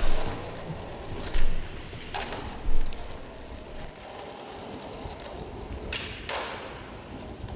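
Skateboard wheels rolling on pavement, with several sharp clacks and thuds from the board, the loudest in the first three seconds.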